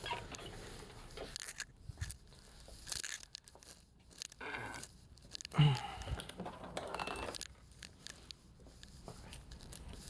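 Light handling noise: scattered scrapes, clicks and crinkling from handling a TV power board while its fuse is checked, with one louder knock about halfway through.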